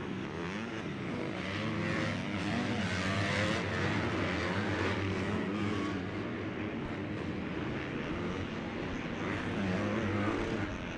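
250cc four-stroke motocross bike engines racing, their pitch rising and falling as the riders accelerate and back off around the track.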